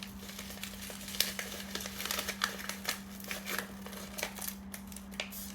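Packaging being handled and opened: irregular crinkling and rustling of plastic or paper wrapping, with short sharp crackles and snips, over a steady low electrical hum.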